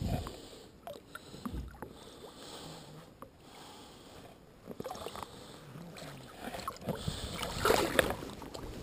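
Lake water sloshing and lapping around a hand and a northern pike held at the boat's side, then a splash near the end as the released pike kicks its tail and swims off.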